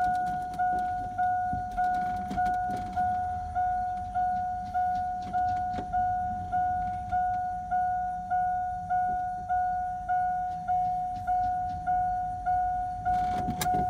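A vehicle's electronic warning chime dinging steadily, a little under twice a second, as when the door is open with the key in. Faint clicks and handling noises sound beneath it.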